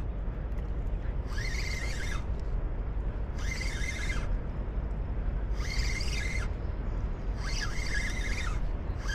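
Size-3000 spinning reel being cranked in short bursts about every two seconds while a hooked fish is played in, each burst a whir that rises and then falls in pitch. A steady low rumble runs underneath.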